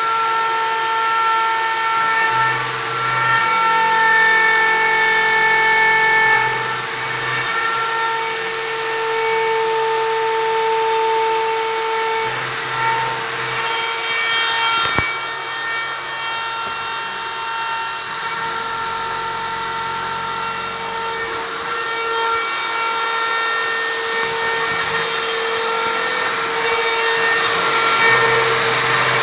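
CNC wood router's spindle running with a steady high whine, its loudness shifting a little as the bit cuts into a wooden board. A lower hum switches on and off every few seconds, and there is a single click about halfway through.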